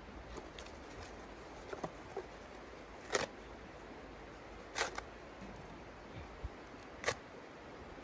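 Scattered sharp clicks or knocks over a steady low hiss: a few faint ones early, then three louder ones, about three, five and seven seconds in.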